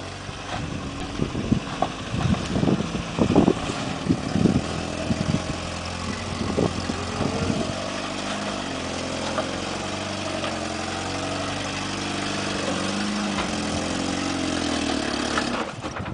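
Lifted 4x4 pickup truck's engine running under load as it crawls over rock, with a cluster of sharp knocks and bangs in the first few seconds and again a few seconds later. Near the end the engine sound cuts off abruptly: the engine stalling.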